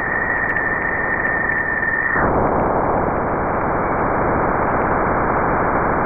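Jupiter's radio emissions converted to audio: a dense hiss of static, like a radio tuned between stations. A steady whistle sits over the static until about two seconds in, then stops, and the static grows slightly louder.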